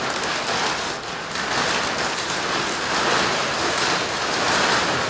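Large metallized foil wrapping bag crinkling and rustling continuously as it is pulled and bunched off a milling machine, dipping briefly about a second in, then swelling again.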